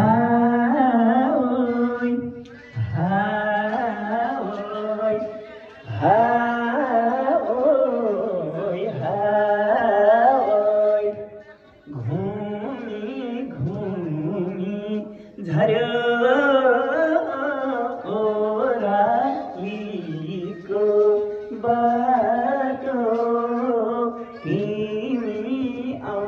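A young man's voice singing a melody into a handheld microphone, in phrases a few seconds long with short breaks between them.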